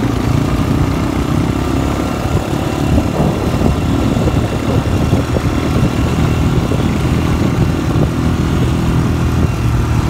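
Off-road vehicle engine running steadily while driving along a rough dirt farm track, with many small knocks and jolts from the bumps.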